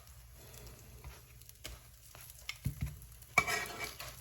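Faint sizzle from a hot pan where flour tortillas are warming, with a few light utensil clicks, a soft knock, and a louder scrape near the end.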